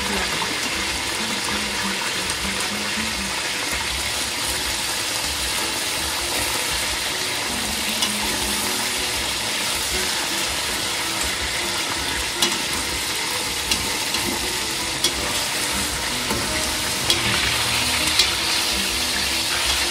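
Chicken breasts sizzling steadily as they sear in hot olive oil in a stainless steel pot. Metal tongs turning the pieces give a few sharp clicks against the pot in the second half.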